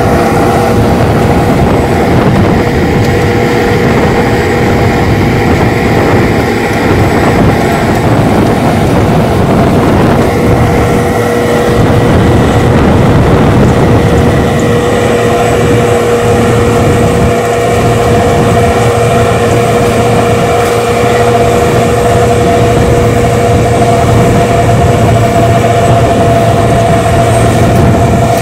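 Caterpillar PM102 cold planer (road milling machine) running loud and steady, its diesel drone overlaid with a steady high whine that shifts slightly partway through.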